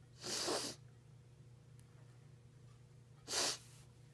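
Two short breaths from a person, about three seconds apart, over a low steady hum.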